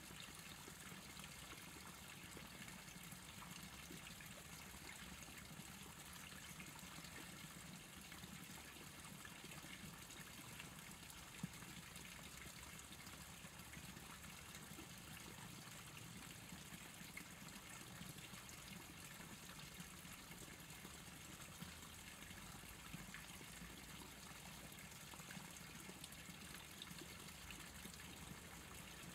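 Faint, steady trickle of a shallow stream, with a low steady hum beneath it and one sharp click about eleven seconds in.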